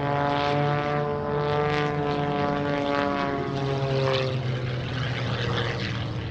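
MXS-RH aerobatic monoplane's piston engine and propeller in flight: a steady buzzing drone whose pitch rises and falls slightly during the manoeuvre. About four seconds in, the clear engine tone fades into a rougher, noisier rush.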